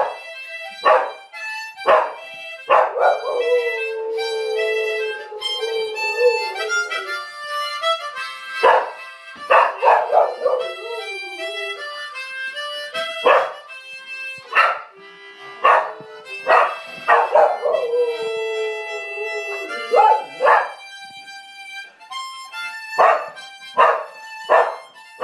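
Harmonica played in short bursts of chords, with a dog howling along in long, wavering howls, once about three seconds in and again around seventeen seconds.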